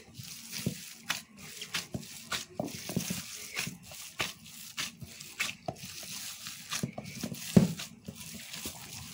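Irregular short wet squelches and pats of a gloved hand kneading a moist minced-chicken and potato mixture in a bowl, with one louder knock about a second and a half before the end.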